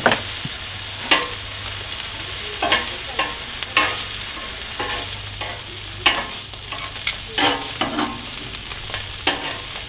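Hot dogs, buns and onions sizzling on the flat top of a Cuisinart 360 griddle. Metal tongs clink and scrape against the griddle and the onion pan about once a second as the food is turned.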